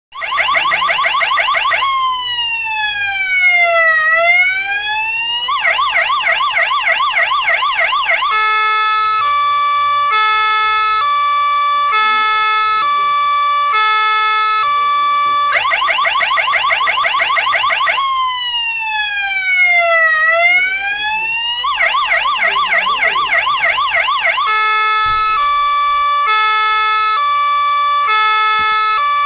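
SAME electronic ambulance siren cycling through its tones: about two seconds of fast yelp, a slow wail that falls and rises again, more fast yelp, then a two-tone hi-lo that alternates between two notes roughly once a second. The cycle repeats about halfway through.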